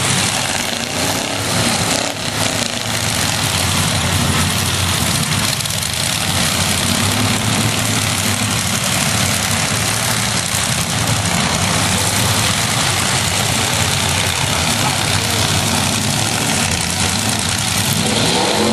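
Demolition derby trucks' engines running and revving, with a few sharp knocks about one to two seconds in.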